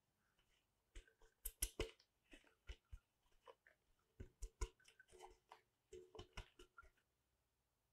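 Aluminium tube cake pan being tilted, turned and knocked on the tabletop to spread flour over its greased inside: an irregular run of light knocks and clicks, starting about a second in and stopping near the end.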